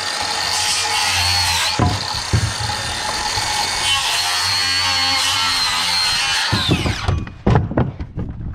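Circular saw cutting through 2x lumber with a steady high blade whine, making a few cuts back to back. About seven seconds in the saw stops and winds down, followed by several knocks of the cut boards being handled.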